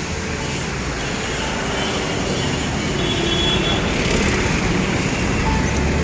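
Steady town-street traffic noise: a continuous rumble and hiss of cars and motorbikes going by on the road.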